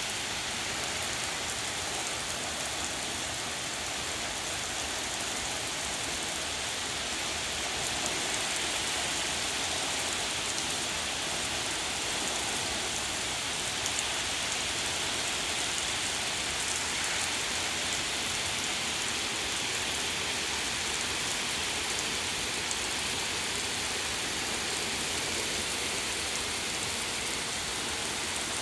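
Heavy rain pouring steadily onto a street, lawns and trees, a dense even hiss.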